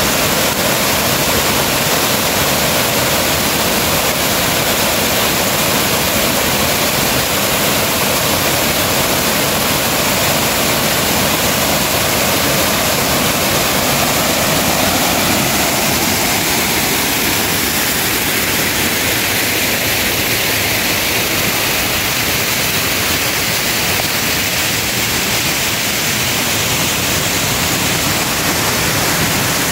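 Steady, loud rushing water, an even hiss with no separate drops, knocks or beats.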